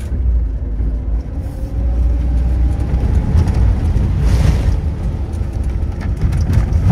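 Heavy vehicle engine running with a deep, steady rumble. A brief hiss comes about four and a half seconds in.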